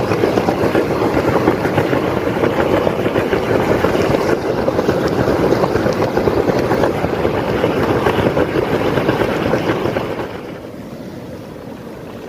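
Geothermal hot-spring water boiling and bubbling up among rocks, a dense steady bubbling that turns quieter about ten seconds in.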